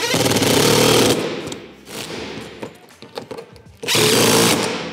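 DeWalt 20V cordless impact driver hammering in two bursts of about a second each, the second near the end, as it runs a socket down on the windshield bracket bolts to tighten them against the fender.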